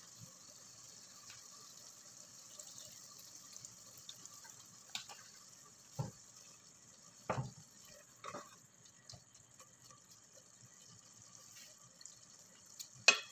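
Wooden spoon stirring lamb in a stainless steel pot, knocking against the pot a handful of times, with one sharper knock near the end, over a faint steady hiss.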